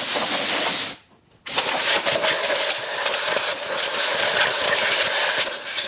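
Compressed air from the homemade propane-tank compressor blowing out of an air nozzle, a loud hiss. A short blast stops about a second in, then a longer steady blast follows, bleeding down the tank pressure.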